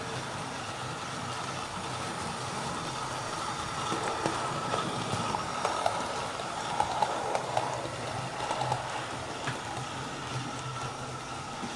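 Model trains running on the layout's track: a steady motor and wheel hum, with a run of sharp clicks over the rail joints from about four to nine seconds in as a locomotive and its coaches pass close by.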